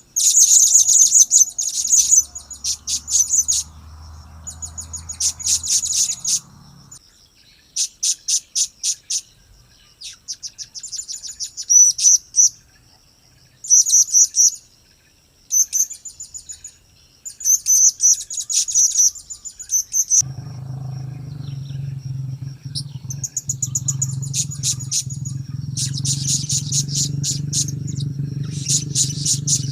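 Blue-crowned hanging parrot (serindit) calls: bursts of rapid, high-pitched chirping and chattering, a second or two each, repeated with short gaps. About two-thirds of the way in, a steady low hum starts beneath them.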